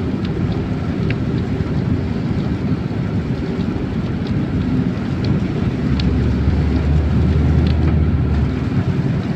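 Steady road and engine rumble from inside a moving car, with scattered ticks of rain striking the car; the low rumble deepens for a couple of seconds from about six seconds in.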